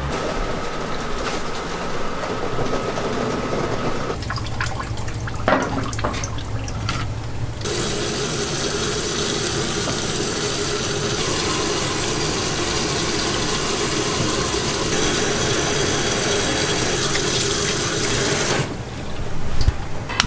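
Water splashing as whole fresh squid are rinsed by hand in a pan, then a tap running steadily into the pan for about ten seconds.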